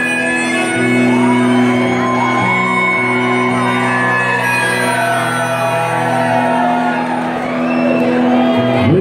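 Rock band playing live and loud, led by electric guitar, with long held notes and chords that change every second or two and a sharp upward slide near the end.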